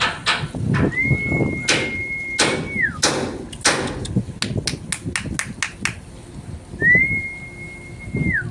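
A high, steady whistled note that slides up, holds and slides down, heard twice: once for about two seconds starting about a second in, and again for about a second and a half near the end. Rapid sharp knocks sound several times a second throughout.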